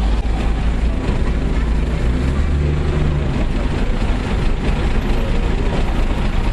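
Steady city traffic: vehicle engines running as a continuous low rumble under a dense wash of road noise, with a heavier engine tone standing out in the first half.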